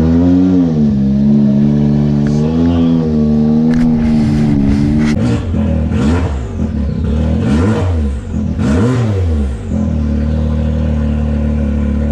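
Straight-piped Can-Am Maverick X3 Turbo's turbocharged three-cylinder engine idling with two light blips, then revved up and down three times about six to ten seconds in, before settling back to idle.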